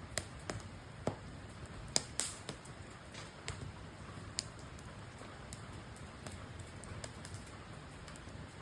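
Wood fire crackling: irregular sharp pops and snaps of uneven loudness over a low steady rush.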